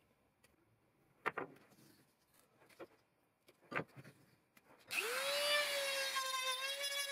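Tape being peeled off a knife-blade template: two short rustles. About five seconds in, a small power tool's motor spins up to a steady high whine that wavers slightly in pitch as it cuts into the template.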